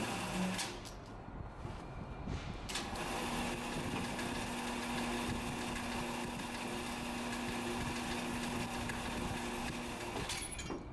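Steady hum of machinery running, engine-like, with a held low tone from about three seconds in until near the end.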